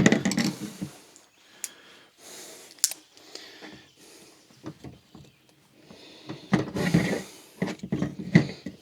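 Screwdrivers prying apart an old EGR valve glued together with RTV sealant: scraping with sharp clicks and cracks as the sealant and flange give way. The scraping is louder and busier near the end.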